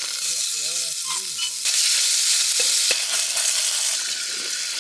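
Hot oil sizzling in a stainless saucepan as sliced mushrooms and green onions are tipped into it. The sizzle grows louder for a couple of seconds partway through.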